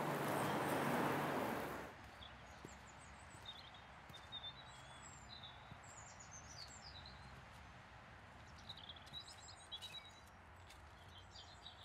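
A steady rush of background noise that cuts off suddenly about two seconds in, followed by small birds chirping faintly on and off.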